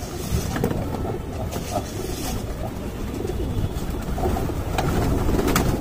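A flock of rock pigeons cooing while they feed, with wings flapping and a few short sharp sounds now and then, over a steady low rumble.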